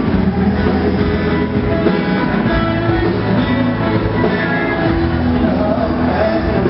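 Live band music: a Gayo song played on electric bass and guitar.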